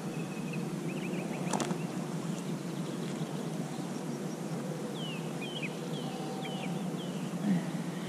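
Outdoor riverbank ambience of steady wind and water noise, with a single sharp knock about a second and a half in. A bird gives a run of about six short, falling chirps around five to seven seconds in.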